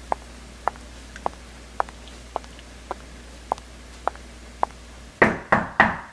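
Footsteps across the room, light regular ticks about two a second, then three loud knocks on an interior door near the end.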